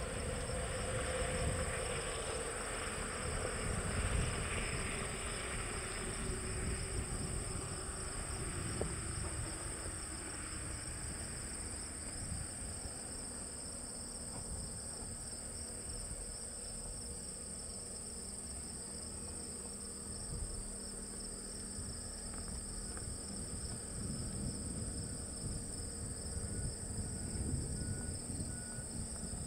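Steady, high-pitched chorus of crickets and other insects, continuous throughout, over a low uneven rumble.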